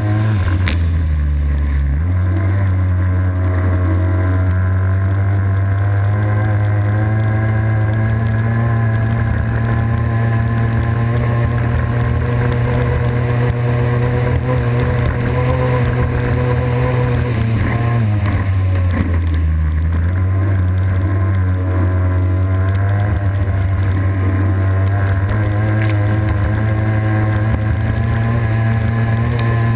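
Racing boat engine running at high revs, with water rushing past. The revs drop twice, about a second in and again around eighteen seconds in, then climb back up.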